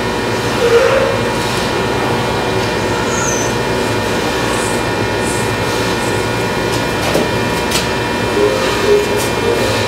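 Hydraulic power unit of a 16-ton forging press, electric motor and pump running steadily with a constant hum, loud throughout. The press is running so that way lube can work into its new bronze slide wear plates.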